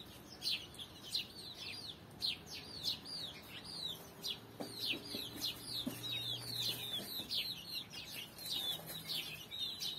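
Young chickens peeping in a continuous run of short, high, falling chirps, several a second, with a lower clucking call joining in about midway.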